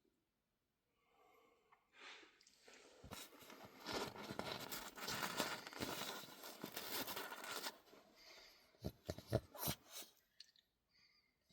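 Rustling and crinkling handling noise for several seconds, then a quick cluster of sharp clicks about nine seconds in.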